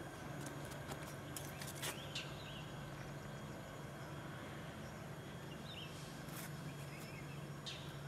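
Faint outdoor ambience: a steady low hum, a few short bird chirps, and scattered light clicks and taps, clustered in the first two seconds and again near the end.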